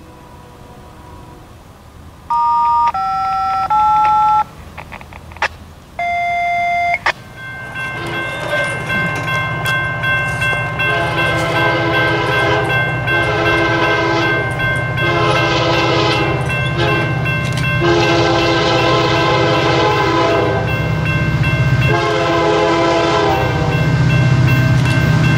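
Approaching diesel locomotive sounding its multi-tone air horn in a series of long blasts over a rising engine rumble. Before it, near the start, come a few short steady pitched tones.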